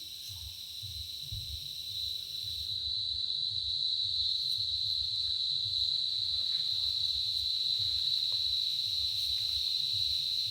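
Forest insects keeping up a steady, unbroken high-pitched drone that grows louder about three seconds in, over a low fluttering rumble of wind.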